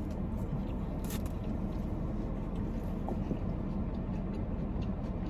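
Steady low rumble of an idling car heard from inside the cabin, with a short crunch of someone chewing fried food about a second in and a few fainter mouth ticks.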